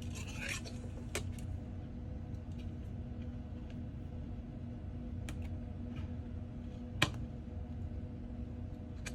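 Scattered light clicks and taps of small repair tools against an iPhone's frame and parts, with one sharper click about seven seconds in, over a steady low hum.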